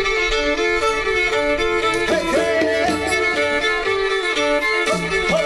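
Folk tune played on violin: a bowed melody stepping from note to note over a steady held note.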